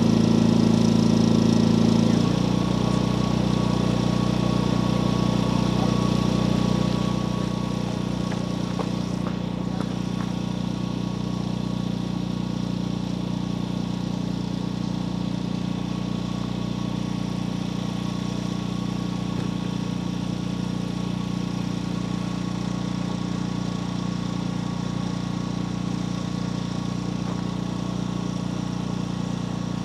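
An engine idling steadily. Its sound steps down about two seconds in and again about seven seconds in, then holds even.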